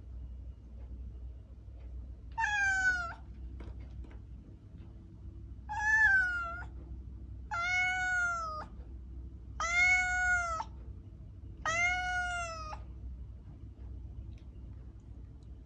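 A domestic cat meowing five times, each meow about a second long and spaced roughly two seconds apart, the first two falling in pitch at the end.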